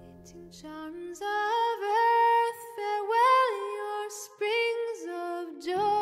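Soundtrack music: a woman's voice sings a slow, lullaby-like melody, almost unaccompanied, entering about a second in as the previous instrumental music fades. Lower accompanying tones come in near the end.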